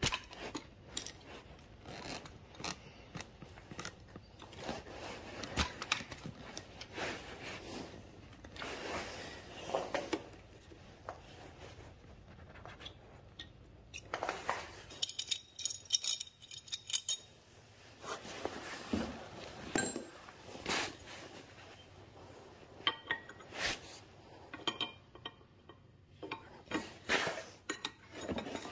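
Hand tools and metal motorcycle parts clinking, tapping and scraping as the handlebar controls and a clip-on clamp are worked on, in scattered short knocks, with a quick run of rapid clicking about halfway through.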